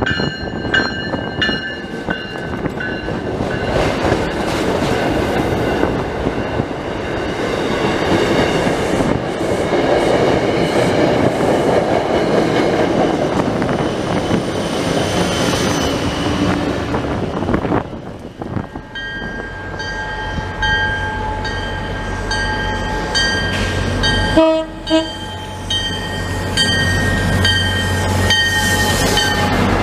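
A train passes with a steady rumble of wheels on rails, while railroad crossing bells ring repeatedly before and after. In the second half a locomotive hums steadily, and two short horn blasts sound about two-thirds of the way through.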